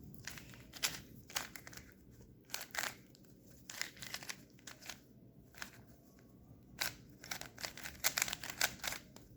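Plastic 3x3 speed cube being turned by hand: the layers rotating give irregular runs of quick clicks and clacks.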